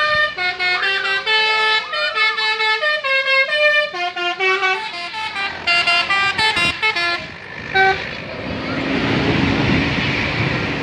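Bus 'telolet basuri' musical horn playing a quick melody of short stepped notes, which stops about seven seconds in after one last short note. Engine and street noise follow.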